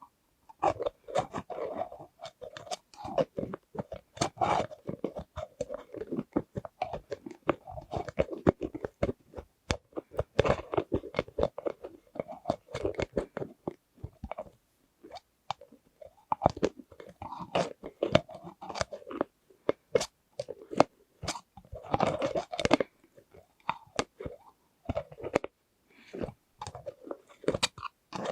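Close-miked ASMR tapping and handling sounds: dense, irregular clicks and crackles coming in quick clusters.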